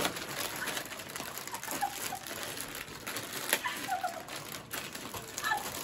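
Foil potato-chip packets crinkling and rustling in the hands, with many small clicky crackles as they are torn open and handled. A few short, high chirps sound over it.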